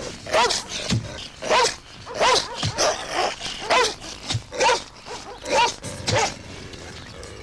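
Large white dog barking over and over, about eight loud barks spaced a little under a second apart.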